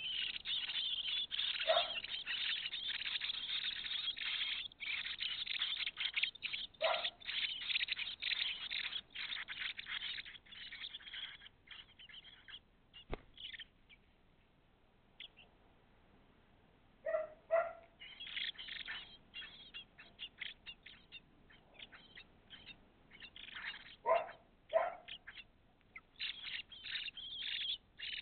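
Blackbird nestlings begging in the nest, a thin high chirping in dense runs that stop for a few seconds just past the middle and then start again. Among them are a few shorter, lower calls, and a single click about halfway.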